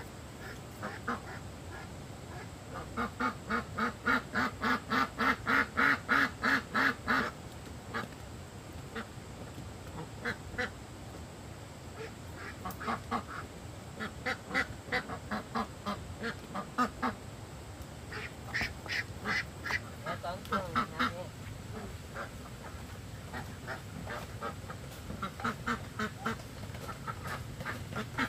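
Domestic ducks quacking in runs of rapid calls, about three to four a second, in several bursts with short pauses between.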